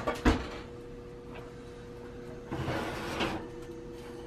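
Electric oven door pulled open, with a click and a clack in the first third of a second. About two and a half seconds in comes a scraping rattle of about a second as the oven rack holding the cast-iron pan slides forward. A faint steady hum runs underneath.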